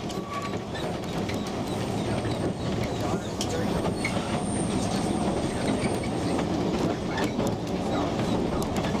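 Narrow-gauge Ffestiniog Railway train running along the track, heard from inside the carriage: a steady rumble and rattle of wheels on rails with scattered clicks, and a faint high squeal for a few seconds in the middle.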